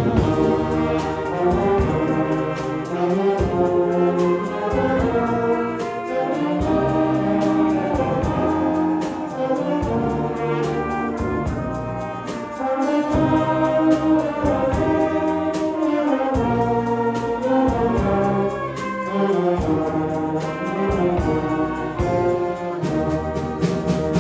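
Concert wind band (harmoniorkester) playing a piece, with brass out in front over a steady pulsing bass line.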